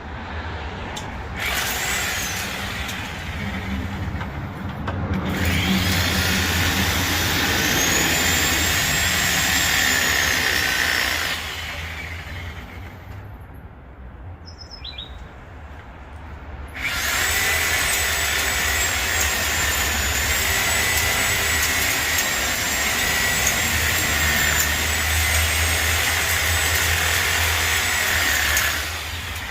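Electric Sawzall reciprocating saw cutting through bottlebrush branches, running with a steady high whine. It runs in two long cuts of about ten seconds each, with a pause of a few seconds between them.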